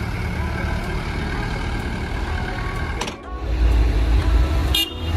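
Vintage Mercedes-Benz cars driving slowly past: a W123 estate's engine running steadily, then, after a sudden cut about three seconds in, a louder low rumble as a 190SL roadster rolls by.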